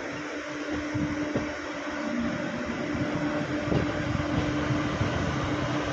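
Electric locomotive hauling a container freight train past at low speed: a steady electrical hum that drops in and out, over the uneven low rumble of the wagons on the rails, growing a little louder toward the end.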